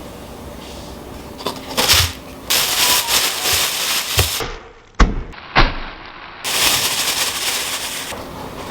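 Food-preparation sounds: two stretches of crackly rustling, each a second or two long, with several sharp knocks between them.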